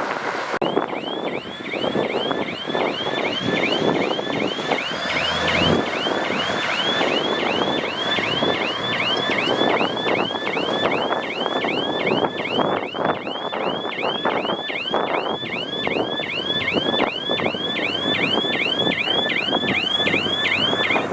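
Heavy construction machinery running with a dense mechanical clatter. Over it a reversing alarm sounds a repeating rising-and-falling chirp about twice a second; it starts about half a second in and stops just before the end.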